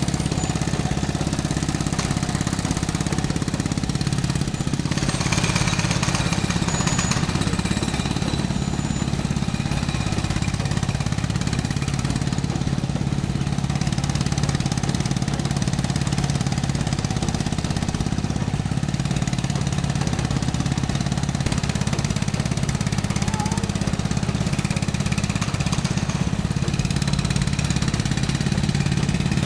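Small DC hobby motor of a miniature water pump running steadily, turning a rubber-band belt drive. It cuts off at the very end as it is switched off.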